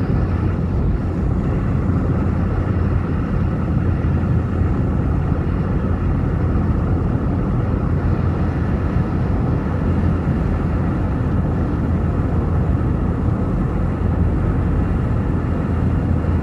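Steady low drone of a vehicle travelling at motorway speed, heard from inside the cabin: tyre and engine noise, unchanging throughout.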